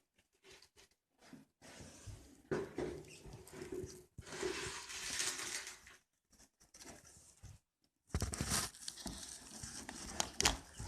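Newly hatched chicks moving about, a scratchy rustling and pattering that comes and goes with short pauses, busier and louder from about eight seconds in.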